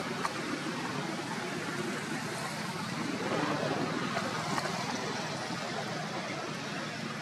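Steady rushing outdoor background noise with a few faint clicks.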